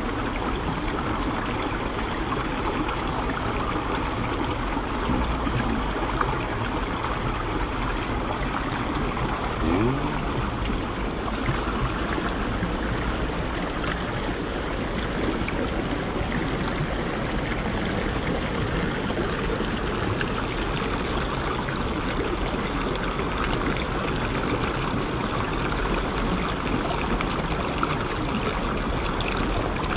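Shallow stream rushing and trickling over rock slabs, a steady flow of water.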